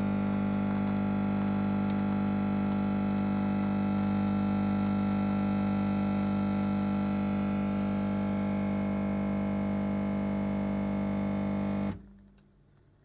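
Nespresso capsule machine humming steadily with a strong low buzz while it dispenses milk into the glass, then cutting off abruptly near the end as the pour finishes.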